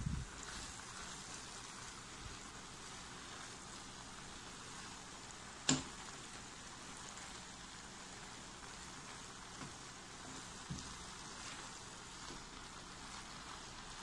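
Shredded cabbage and carrot sizzling in a non-stick pan, a low steady hiss, with one sharp click about halfway through and a few softer knocks later from the wooden spatula stirring against the pan.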